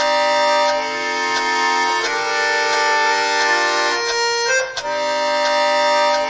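Accordion playing sustained reedy chords, moving to a new chord about two seconds in and again about four and a half seconds in.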